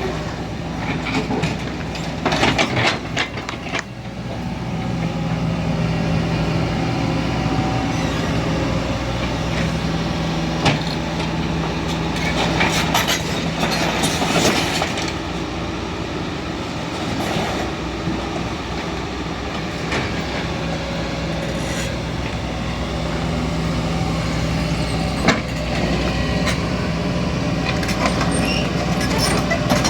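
Kobelco excavator's diesel engine running steadily, with metal clanks and knocks from the machine as it works; sharp knocks come about 3 seconds in, near 11 seconds and about 25 seconds in.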